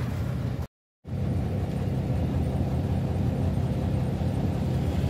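Vehicle engine and road noise heard from inside the cab: a steady low rumble. It drops out to silence for a moment about a second in.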